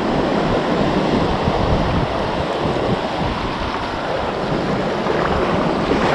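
Shallow surf washing up over sand, a steady noise of breaking wash, with wind buffeting the microphone.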